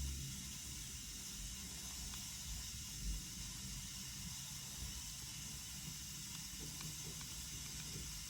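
Faint, steady hiss of flux sizzling on a battery contact under a soldering iron tip as the joint heats up, with one small tap about three seconds in.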